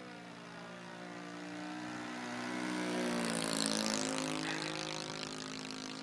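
Propeller-driven RC model airplane flying low overhead, its engine and propeller note growing louder to a peak a little past halfway, then fading as it moves away.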